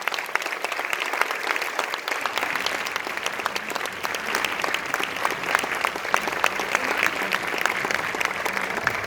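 An audience of many people applauding steadily, a dense patter of hand claps.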